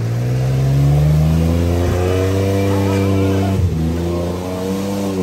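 Off-road truck engine revving hard under load. Its pitch climbs and holds, dips briefly a little past halfway, then rises again.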